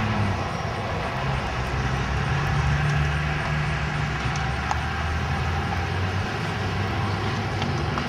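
A car's engine and road noise heard from inside the moving car: a steady low drone that shifts slightly in pitch as it drives along.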